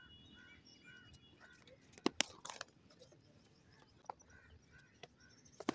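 A bird chirping faintly in short repeated notes, about three a second. There are a few sharp knocks: two close together about two seconds in, and one just before the end as the bat strikes the ball.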